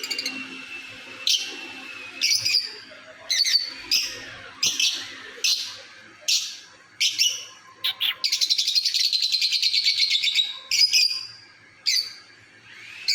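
Parrot calling: short, sharp, high calls roughly once a second, broken about eight seconds in by a rapid rattling chatter that lasts between two and three seconds.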